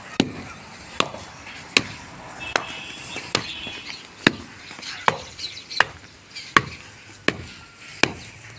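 Dry clay clods pounded with the end of a long wooden pole against hard ground: sharp thuds with a crunch, in an even rhythm of about one strike every three-quarters of a second. The clay is being broken up to make tandoor clay.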